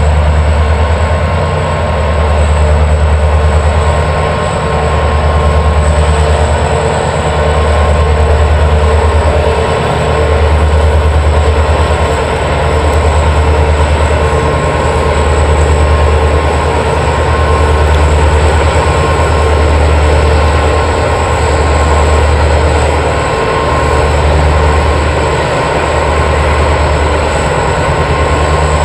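Two GM-EMD GT26MC (Class 34) diesel-electric locomotives running under load as they pass hauling a freight train, their turbocharged 16-cylinder EMD 645 engines giving a deep throb that rises and falls about every two seconds over a steady high whine.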